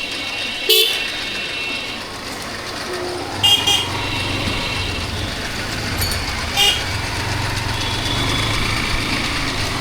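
Steady road and engine noise of a motorcycle riding in traffic, with short vehicle horn beeps: one about a second in, a quick double beep around three and a half seconds, and another near seven seconds.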